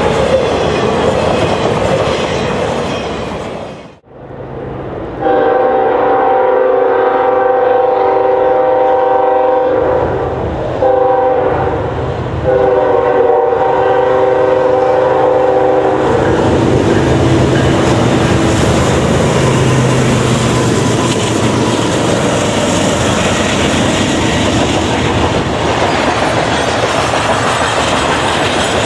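Freight train running by; after a cut, a diesel locomotive's air horn sounds a chord: a long blast, a short one and another long one. The train then keeps running past at a steady loud level.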